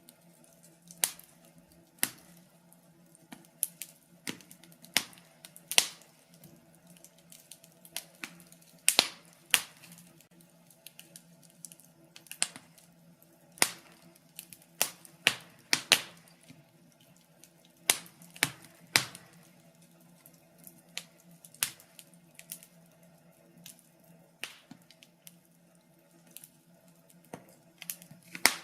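Wood fire crackling: irregular sharp pops and snaps, sometimes several in quick succession, over a faint steady low hum.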